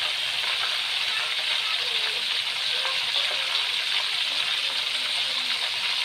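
Thin slices of angleng banana deep-frying in hot oil in a wok: a steady sizzle with small scattered crackles. This is the sound of water still cooking out of the chips. It is meant to die away once they are dry and crisp.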